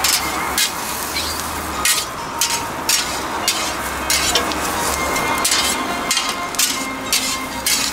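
Cut Vienna sausages sizzling on a flat steel griddle, with metal spatulas scraping and clacking against the griddle over and over as they turn and toss them.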